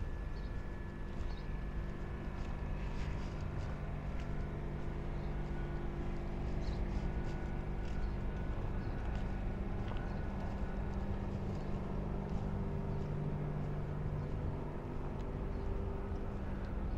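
An engine running steadily at low revs, a low hum that swells slightly about three-quarters of the way through, with light footsteps clicking on hard ground over it.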